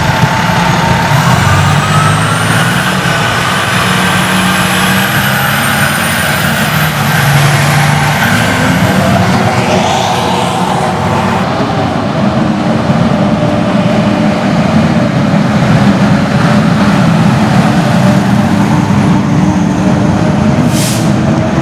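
Fire trucks' Detroit Diesel engines pulling away and driving past, the engine pitch rising as they accelerate through the first several seconds, with a second truck passing near the end. A short hiss near the end.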